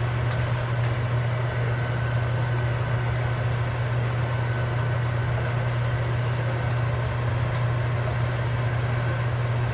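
Stove exhaust fan running steadily: a constant low hum with rushing air.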